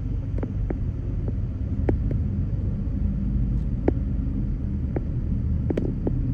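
A car driving in traffic: steady low rumble of engine and road noise, with a few irregular light clicks.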